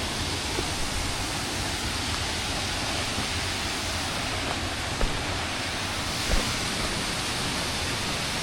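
Steady rushing of a small waterfall running at low flow, not very full but still going. Two brief low thumps come about five and six seconds in.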